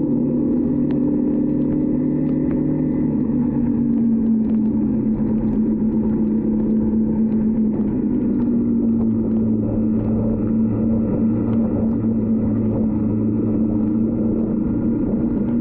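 Yamaha WR155's single-cylinder engine running steadily as the motorcycle cruises, its note dropping slightly in pitch a few seconds in.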